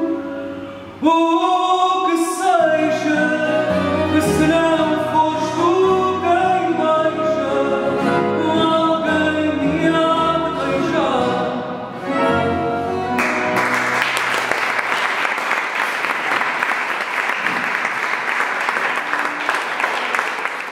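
Male fado singer sings the final phrase of a fado, accompanied by Portuguese guitar, fado guitar and bass guitar. About thirteen seconds in the song ends and the audience breaks into steady applause.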